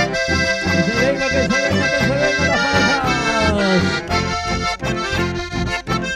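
Live chamamé with no singing: an accordion plays the melody over strummed guitars and bass to a steady beat.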